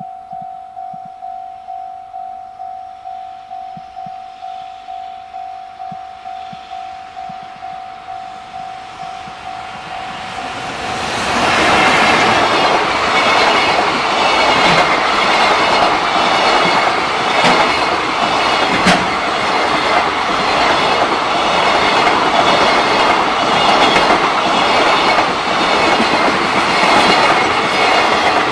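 A level-crossing warning bell rings in a steady run of repeated dings. About eleven seconds in, a JR Freight container train reaches the crossing and passes close by. Its wheels clatter over the rail joints in a loud, continuing rush of noise that covers the bell.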